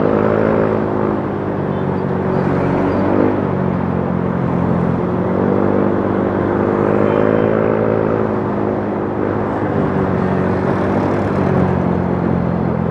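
Motorcycle engine running while riding in traffic, its pitch rising and falling as the bike speeds up and eases off, near the start and again from about five to nine seconds in, over a steady rush of road noise.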